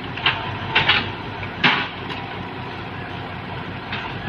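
Tracked excavator's diesel engine running under load as the machine climbs onto a trailer, with a few sharp metallic clanks and squeals from the steel tracks and undercarriage in the first two seconds and once more near the end.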